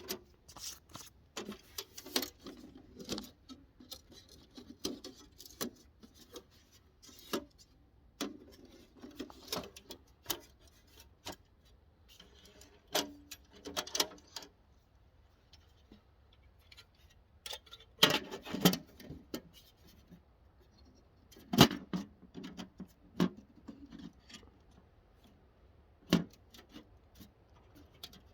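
Irregular metallic clinks, clicks and rattles of stove parts being handled and fitted together, with a few louder knocks about two-thirds of the way through.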